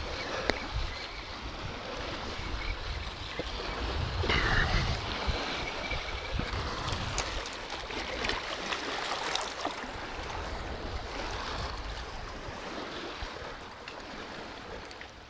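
Wind on the microphone and water lapping at the river's edge: a steady rushing with low rumble that swells briefly about four seconds in, with a few faint clicks.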